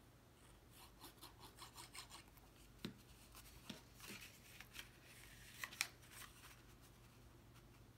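Faint glue being rubbed quickly onto a cardstock tab, a run of short scratchy strokes, followed by a few light taps and rustles of cardstock being handled.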